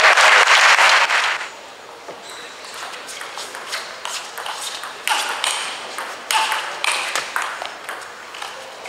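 A brief wash of crowd noise at the start. Then a table tennis rally: the ball clicks sharply off the bats and the table, several hits a second, in a large hall.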